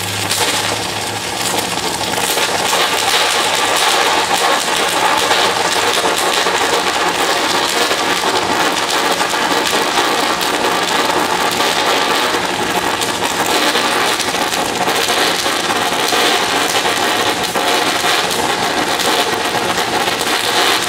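Stick welding arc from a 3/4-inch Cor-Met F25 electrode at about 1000 amps: a loud, steady crackling sizzle as the rod is dragged slowly along the steel plate.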